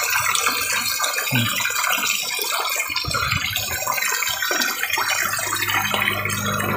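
A crowd of tilapia churning at the pond surface: continuous splashing with many small plops and clicks as the fish mouth and thrash at the surface, begging for food. A low steady hum comes in near the end.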